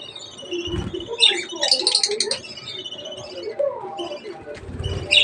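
Budgerigars chirping and chattering in quick, high-pitched warbles, busiest about two seconds in.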